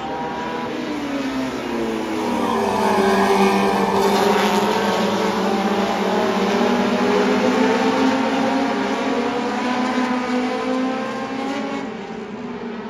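A pack of short-track stock cars racing past, several engines at high revs with their pitches gliding up and down as the cars go by. The sound swells as the field passes, then drops near the end.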